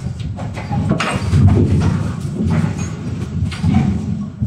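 Forging manipulator running with a low, uneven machinery rumble and a few knocks as its tongs move a glowing hot billet on the anvil.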